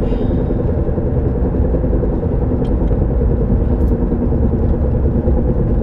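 Car in motion: a steady low drone with road noise, which the owner traces to the driver-side front tire or drivetrain and cannot place as a bad tire or a drivetrain fault.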